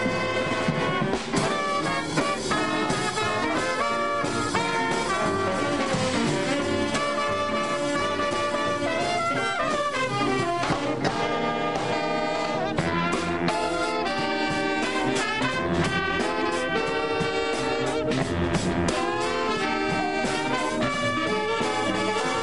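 Big-band jazz music led by a brass section, playing without a break at a steady level.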